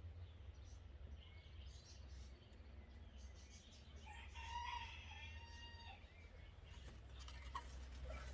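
A rooster crowing once, faintly, starting about four seconds in and lasting about two seconds.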